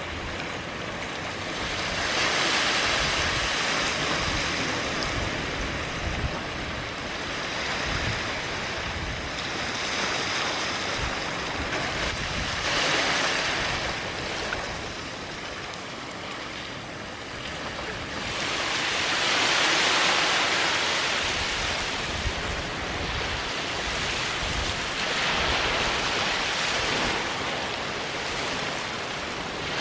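Ocean waves breaking and washing up a sandy beach. The surf swells and ebbs in surges every few seconds, and the biggest wash comes about two-thirds of the way through.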